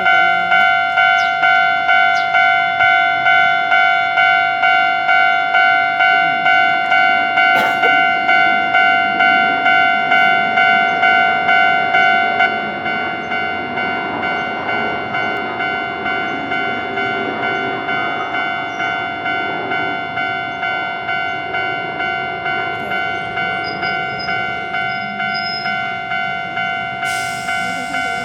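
Japanese railway level-crossing warning bell ringing steadily, about two strikes a second. It drops in loudness a little before halfway through.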